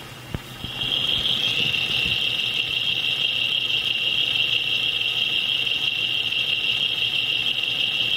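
Jeep 4.0L inline-six engine running, heard through a Steelman Chassis Ear probe clamped on the A/C compressor bracket: a steady high-pitched whine that comes in about a second in, with no knock in it. This is normal shaft, bearing and A/C clutch noise.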